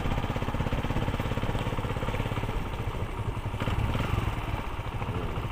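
Motorcycle engine running steadily while the bike is ridden, a fast even pulsing of the exhaust.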